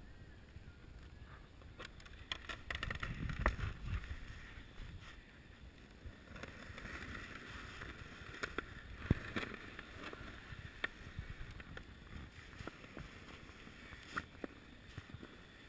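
Snow crunching and scraping with rustling of winter clothing as someone moves through a narrow snow tunnel, with scattered small clicks and crackles. The crunching is loudest a few seconds in.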